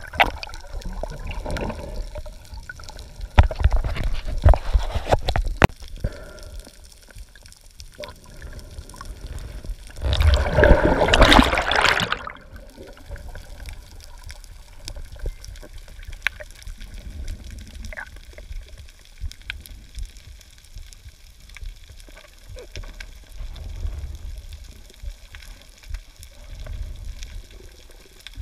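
Water splashing and sloshing over a camera at the surface as a swimmer moves through the water, rising to a loud bubbling rush about ten seconds in that cuts off sharply as the camera goes under. After that, quieter muffled underwater wash with faint scattered ticks.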